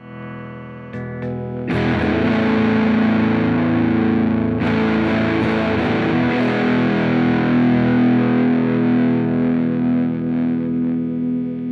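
Squier Cyclone electric guitar played through distortion in its Super Series pickup setting: a few short picked notes, then full chords struck and left ringing with long sustain, restruck once.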